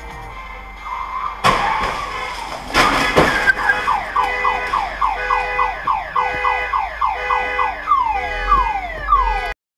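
A car collision: two impacts about a second and a half apart, followed by a car alarm going off with rapid falling chirps that change to slower, longer falling sweeps near the end, then cut off suddenly.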